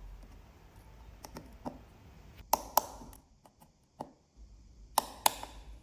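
Small, sharp clicks and taps at irregular intervals, a few faint and two pairs louder, from a torque screwdriver tightening the tiny internal screws of an iPhone X.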